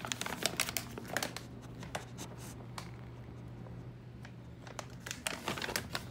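A plastic pet-food bag crinkling as it is handled, in the first second and again near the end, with a quieter stretch between. A low steady hum runs underneath.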